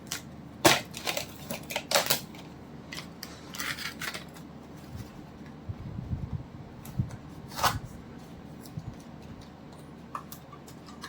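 Irregular sharp clicks and light clatter of small hard objects being handled on a phone-repair counter, with the loudest clicks a little under a second in, around two seconds, and near eight seconds.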